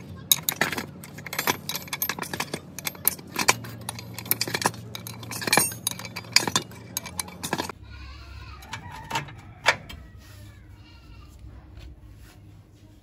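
Metal hand tools clinking and clicking against steel front-suspension parts as a wrench works a bolt on the lower control arm, in quick irregular strokes; after about eight seconds only a few scattered clanks remain.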